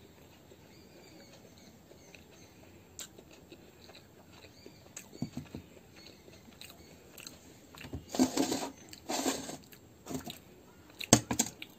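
A person eating paratha by hand at close range: quiet chewing with small clicks, then two louder noisy bursts of about a second each past the middle, and a few sharp clicks near the end.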